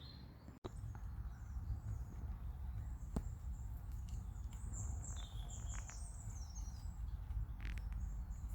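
Small birds chirping with short, high calls, clustered from about four to seven seconds in, over a steady low rumble.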